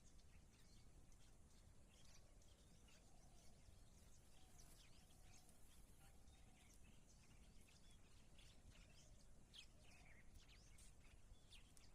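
Near silence with faint, scattered bird chirps, a little more frequent in the second half.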